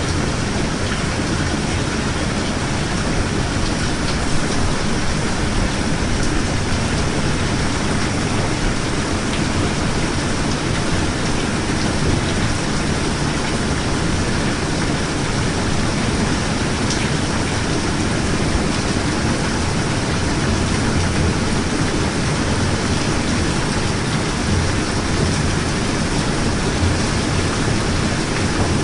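Steady heavy rain: a dense, even hiss of falling rain with a low rumble underneath.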